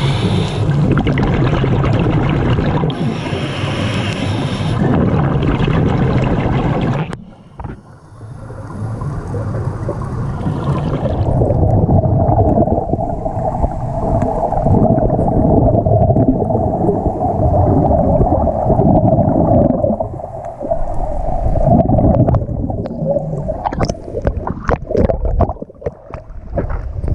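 Underwater sound through a diving camera: a gurgling rush of bubbles for about seven seconds, then a steady droning hum. Choppy splashing comes near the end as the camera breaks the surface.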